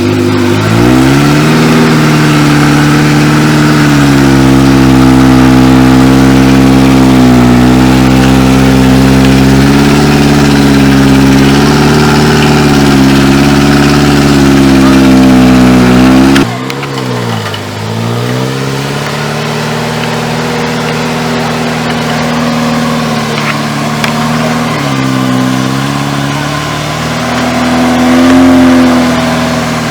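Off-road vehicle's engine running under load, its pitch dipping and rising repeatedly as the throttle changes. The sound drops abruptly in level a little past halfway, then carries on with the same rising and falling engine note.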